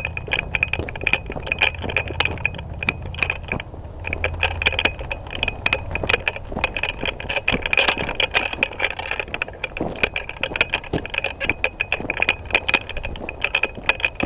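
Irregular clicking and rattling of carried gear and brush as a player moves on foot through the woods, over a steady high buzz.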